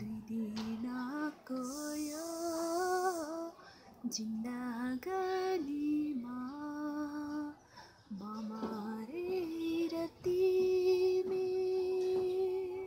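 A woman singing a slow Nepali song solo and unaccompanied, in phrases of held, gliding notes with short pauses between them. A brief hiss comes about two seconds in, and she ends on a long held note near the end.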